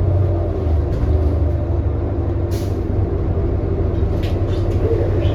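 New Flyer XD40 diesel city bus heard from inside while moving: a steady low engine drone with a constant hum. A short hiss comes about two and a half seconds in, with a few sharp clicks or rattles near the end.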